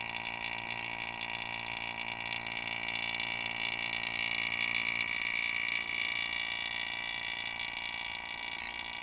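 Oil-sealed electric vacuum pump running steadily as it draws an empty refrigerant recovery cylinder down to deep vacuum, close to 29 inches of mercury. A steady hum with a higher whine over it, a little louder in the middle.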